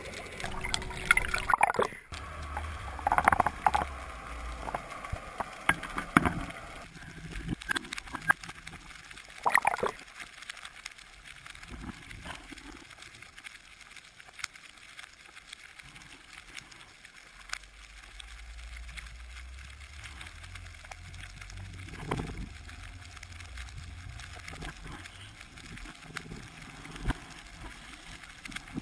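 Underwater sound through a camera housing: a steady scatter of faint clicks and crackles over a low water rumble. A few louder knocks and rustles come in the first few seconds, again around ten seconds and just after twenty seconds.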